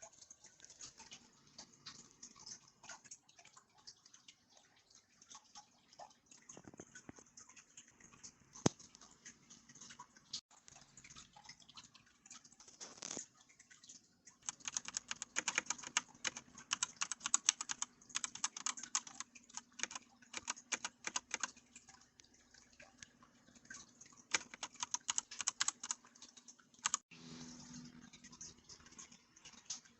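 Typing on a Roccat Pyro mechanical keyboard with linear TTC Red switches. Keystrokes are scattered at first, then fast continuous typing runs for about a dozen seconds in the second half before stopping.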